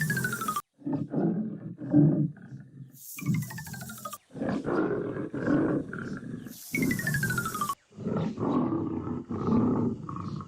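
Tiger roars and growls, edited and looped: the same few seconds repeat about every three and a half seconds. Each repeat opens with a hiss and a falling whistle-like tone and ends in an abrupt cut.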